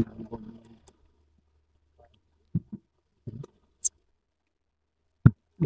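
Scattered soft thumps and taps, with a couple of sharp clicks, from hands working a fish free of a cast net on the floor of a small boat.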